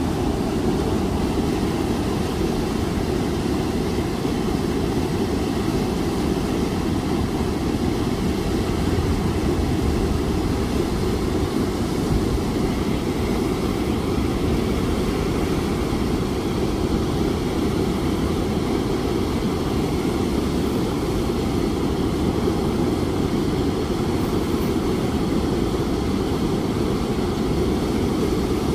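Steady low rumbling noise with no distinct events, unchanging throughout.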